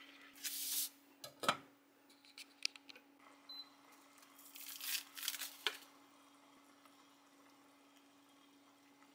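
Wooden spoon stirring and scraping sauce in a cast-iron skillet, with a sharp knock about one and a half seconds in and more scrapes and clicks around five seconds in. A steady low hum runs underneath, and the last few seconds hold only that hum.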